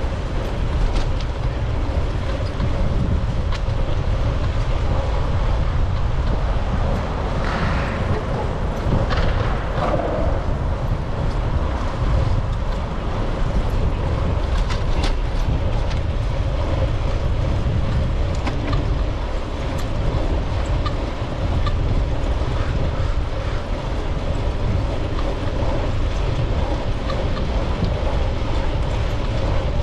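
Wind rushing over an action camera's microphone on a moving bicycle: a steady, buffeting low rumble with scattered faint ticks. A short swell of hiss comes around eight seconds in.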